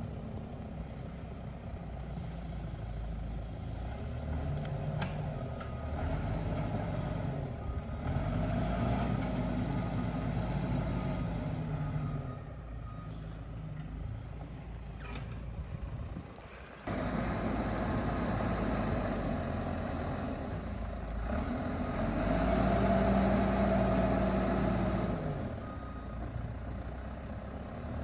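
Heavy diesel earth-moving machine working, its engine revving up and falling back in long swells under load. The sound dips briefly about two-thirds through and comes back suddenly.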